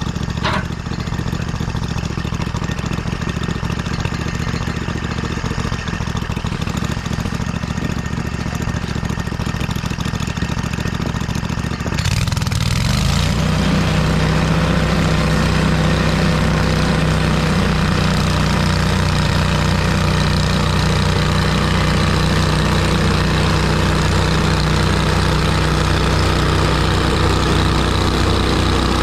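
Engine running at a low idle, then revving up about twelve seconds in and holding at a higher, louder steady speed.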